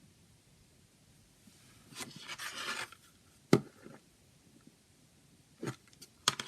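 A CD case being handled: a scraping rustle for about a second, a sharp click, then a couple of knocks and clicks near the end.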